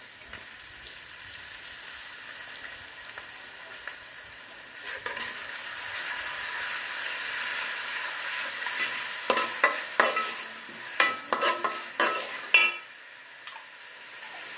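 Chopped onions and capsicum sizzling in an aluminium pot with soy sauce just poured in, the frying growing louder about five seconds in. A steel slotted spoon stirs them, scraping and clinking against the pot in a quick series of strikes from about nine seconds in.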